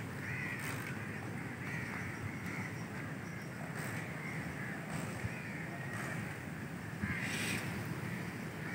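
Crows cawing over and over, about one or two calls a second, with a louder caw about seven seconds in, over a low steady rumble.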